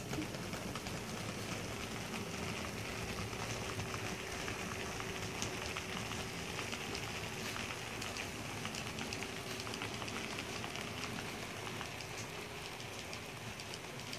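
Model train rolling over the layout's track: a steady crackling rattle with many faint clicks of wheels over rail joints and turnouts, under a faint steady hum.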